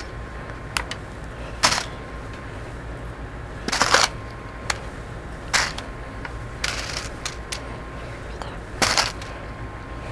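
Metal paper clips clinking and rattling as they are picked out of a plastic tub and dropped into an aluminum foil boat: a string of short, irregular clicks, several of them loud.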